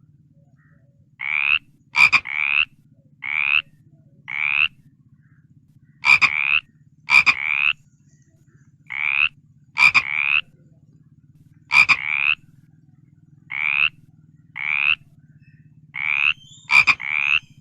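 A frog croaking over and over in short calls that rise in pitch, several coming in quick pairs, with a few sharp clicks among them. A steady low drone runs underneath.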